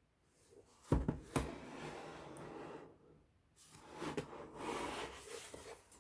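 Handling noise from a laptop being moved on a hard surface: two sharp knocks about a second in, then two stretches of rubbing and sliding.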